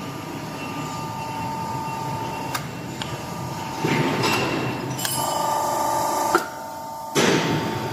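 Y120D hydraulic hose crimping machine working through a crimp cycle: a steady hydraulic whine with a few sharp clicks, then a harsher buzzing stretch that cuts off suddenly, and a short rush of noise near the end.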